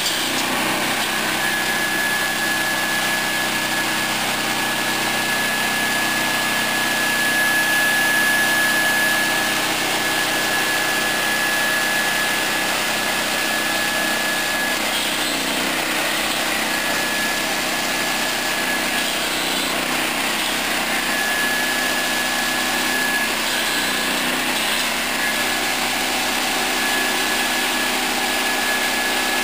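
13 HP single-cylinder gasoline engine of a swing saw running steadily at a constant speed, with a thin high whine over it that drops out briefly a few times.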